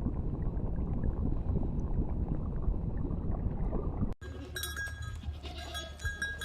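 Flock of sheep bleating over a dense low rumble of the herd. About four seconds in the sound cuts to scattered bleats with bells ringing.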